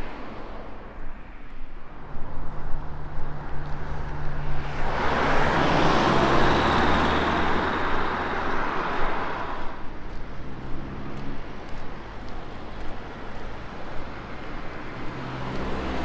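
A motor vehicle passing on the road. Its low engine drone comes in about two seconds in, and the engine and tyre noise swell to a peak in the middle, then fade away.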